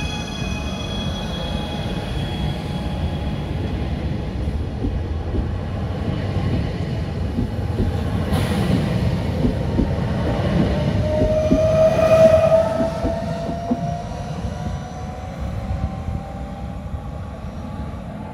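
Trenitalia ETR 425 'Jazz' electric multiple unit pulling out of the station, its wheels rumbling and clicking over the rails. The electric motors' whine rises in pitch as it accelerates, loudest about two-thirds of the way in, then fading as the train moves off.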